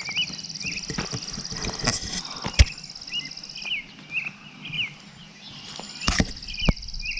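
Insects trilling in a high, steady buzz that breaks off about halfway through and starts again near the end, with a bird's short chirps repeating throughout and one sharp click about two and a half seconds in.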